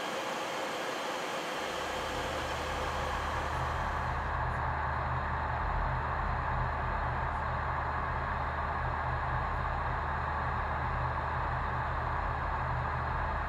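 Steady rushing noise on a Boeing 737-800 flight deck in flight: airflow and air-conditioning hiss. A low steady hum comes in about two seconds in.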